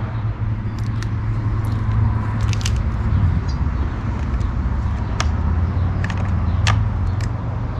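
Scattered sharp clicks and knocks from plastic pressure-washer parts being handled and fitted together, over a steady low hum.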